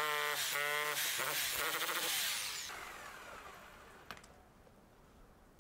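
Electric power tool motor running with a steady whine in a few short bursts, then winding down with a falling pitch about two and a half seconds in, used to widen a hole in a stone wall.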